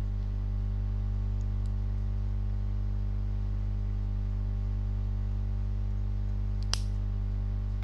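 Steady low electrical hum on the recording, with one sharp click near the end.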